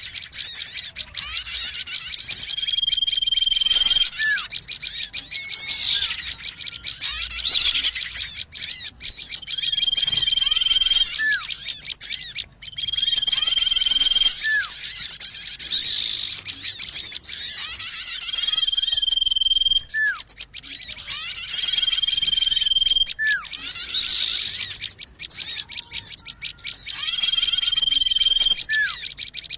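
Dense chorus of many small birds chirping and twittering, played as a bird-lure call for small birds. A steady whistled note about a second long recurs every few seconds over it.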